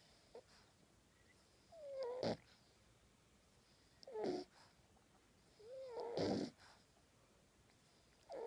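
Ten-week-old French bulldog puppy snoring in his sleep: four snores about two seconds apart. Each starts with a short squeaky whistle that dips in pitch, then turns into a rasp.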